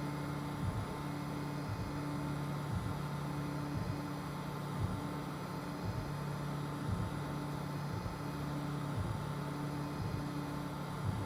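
FDM 3D printer printing: its stepper motors hum at a few low pitches that start, stop and change every half second or so as the print head moves, over a steady whirring hiss from the cooling fans.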